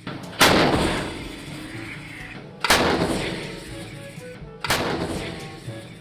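Truck-mounted self-propelled howitzer firing three rounds about two seconds apart. Each shot is a sharp boom that fades away over a couple of seconds, with music underneath.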